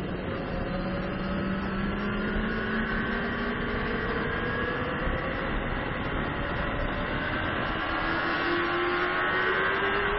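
Sport bike engine running hard on the track, recorded onboard, its note climbing in pitch as it pulls and climbing again near the end, over steady wind noise.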